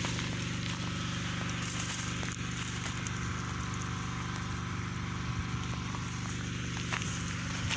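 Generator engine running at a steady speed, a constant hum with a light hiss over it.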